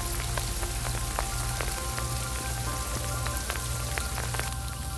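Sleet pellets falling on frozen dry leaves and ice-coated ground, a dense, irregular patter of small ticks.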